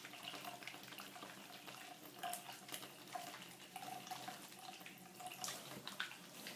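Wet hands working a bar of freshly made olive-oil Castile soap into a lather, with faint wet squishing and small crackly ticks throughout.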